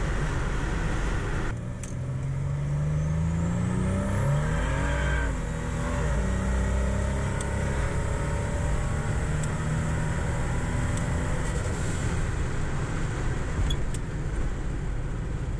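Turbocharged 3800 V6 heard from inside the car's cabin, accelerating with rising revs for about three seconds. The revs then drop sharply as the automatic transmission upshifts, and the engine settles into a steady drone at cruising speed.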